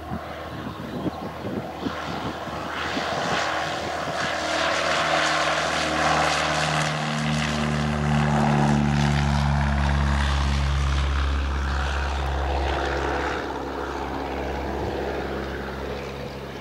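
Single-engine Cessna's piston engine and propeller at full power on the takeoff roll, getting louder as the plane passes close by, then fading as it climbs away.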